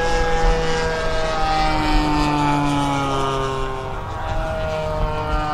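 Radio-controlled model propeller airplane's engine running, its steady note slowly falling in pitch.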